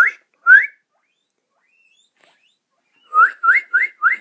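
Guinea pig wheeking: short rising squeals, two about half a second apart at the start, then four in quick succession near the end.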